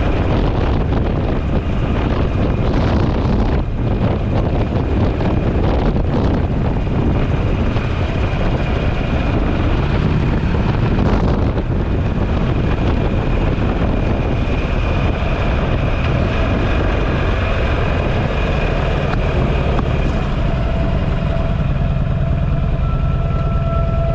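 Buell motorcycle engine running under way, with wind rushing over the microphone. A few steady tones come in near the end.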